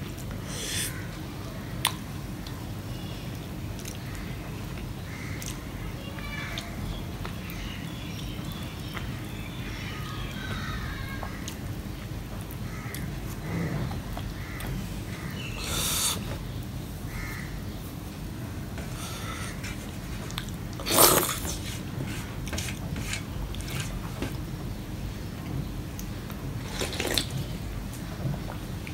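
A man eating with his hands: wet slurping and sucking on pieces of mango from a mango chutney, and fingers scooping mung dal from a steel plate. Short slurps and smacks come on and off over a steady low hum, the loudest slurp about 21 seconds in.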